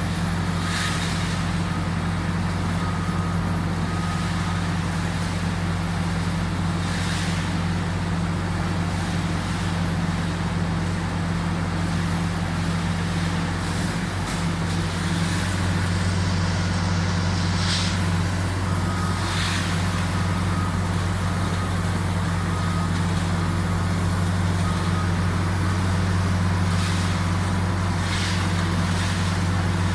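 Heavy machinery's engine running steadily, with a few short clanks or hisses and faint evenly spaced beeping in two stretches.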